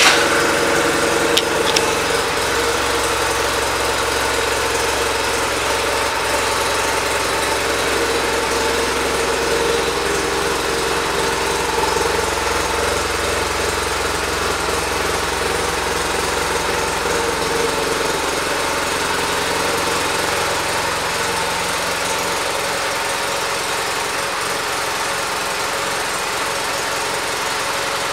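A 2010 BMW R 1200 RT's boxer twin engine idling steadily, freshly started.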